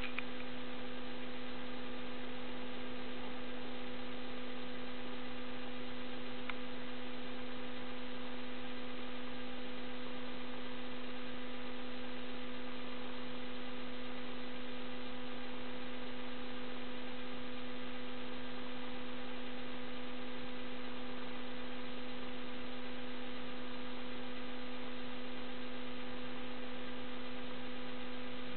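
A steady electrical hum held at one constant pitch, with fainter higher overtones and no rise and fall of breathing.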